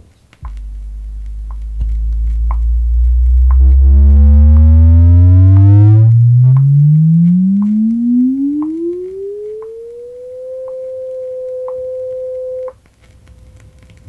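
Test-record sine-tone sweep played from vinyl through loudspeakers: a single pure tone starts low at 50 cycles and glides steadily upward for about ten seconds to 500 cycles, holds there briefly and then cuts off near the end. Faint record-surface ticks sound over it.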